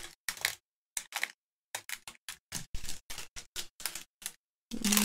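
Small plastic bags of diamond-painting drills being torn apart and handled: a quick, irregular series of about a dozen short crinkles and ticks. Near the end there is a brief hummed voice.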